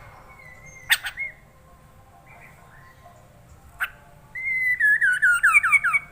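Poksay mandarin, a laughingthrush, singing: a short whistle near the start, then a loud, fast run of about eight downslurred whistled notes, each falling a little lower, over the last two seconds. Two sharp clicks come about a second in and just before four seconds.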